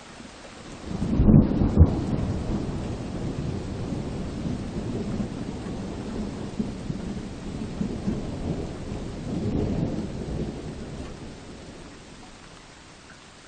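Steady rain hissing in a forest, with a loud low rumble that builds about a second in, swells again near ten seconds, then dies away.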